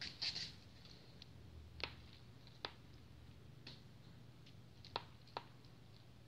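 Faint small clicks and taps over a low steady hum: a quick cluster at the start, then about five single sharp clicks spread through the rest.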